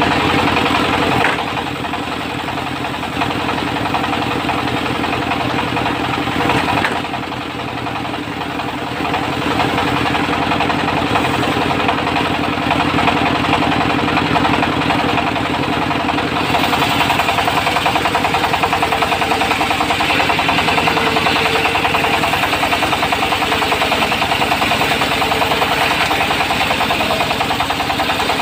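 Diesel engine of a portable circular sawmill running steadily with a fast, even beat. Its level dips about a second in and again around seven seconds, recovers, and from about sixteen seconds the sound turns brighter and hissier.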